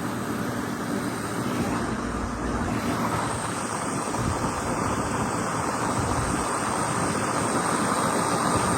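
Sonalika RX 60 tractor engine running steadily, an even mechanical drone with no break.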